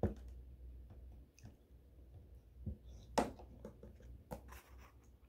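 Faint handling sounds of a glue stick and a paper cutout: a few scattered clicks and taps, the sharpest about three seconds in, as the stick is worked and then set down on a glass tabletop.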